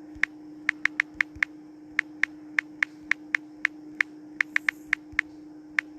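Phone touchscreen keyboard click sounds as text is typed: short, sharp ticks at uneven spacing, several a second, over a steady low hum.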